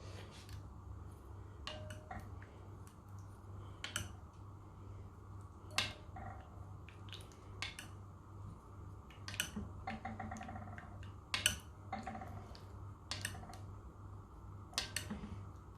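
Scattered light clicks and taps, about a dozen at irregular intervals, from handling skewered spiral-cut potatoes while coating them in batter.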